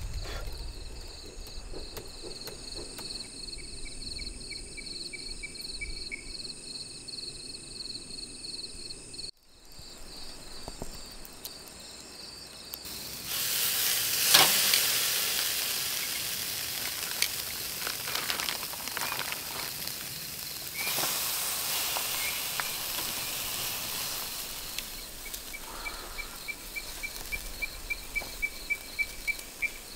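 Meat sizzling on a hot charcoal grill grate. The sizzle starts about halfway through, with a sharp click, and fades slowly. Before it and under its tail, night insects such as crickets trill steadily.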